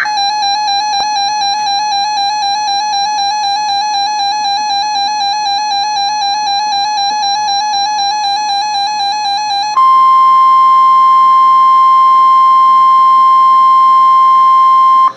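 Weather radio alert tones before a severe thunderstorm warning. A rapidly pulsing electronic alarm beep runs for about ten seconds. It then switches abruptly to a single steady, louder tone, the NOAA Weather Radio warning alarm tone, which lasts about five seconds and stops suddenly.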